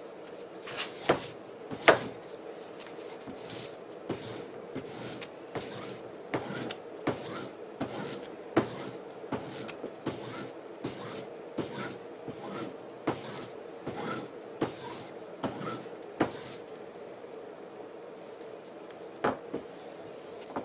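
A denim strop on a narrow board rubbed back and forth along a machete's edge: a regular brushing stroke about every 0.7 seconds, some twenty in all, pausing about three-quarters of the way in before two more strokes near the end. This is stropping to polish the edge to a thin, razor-fine finish. A steady low hum runs underneath.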